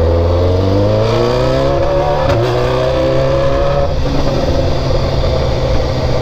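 BMW S1000RR sportbike's inline-four engine pulling under acceleration, loud, its pitch rising steadily over the first three seconds or so and then holding level, with wind rushing past.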